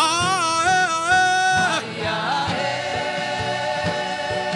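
Gospel worship music: a voice holds one long note with vibrato for nearly two seconds, then a sustained chord carries on over a steady low beat.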